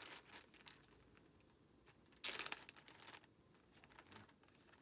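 Plastic bag crinkling as it is handled, with a louder rustle lasting about a second near the middle.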